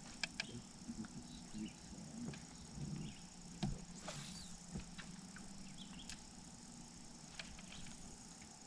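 Quiet ambience on a boat on a lake: a faint steady drone of insects, a low hum, and scattered small clicks and taps from the anglers' reels and rods, with a soft swish about four seconds in as a rod is cast.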